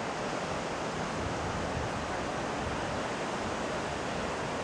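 Ocean surf with wind, a steady rushing noise with an uneven low rumble.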